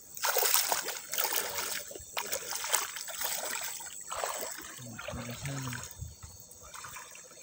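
Shallow stream water splashing and trickling over rocks as a hand stirs and gropes through it, in several uneven surges that die down after about four seconds.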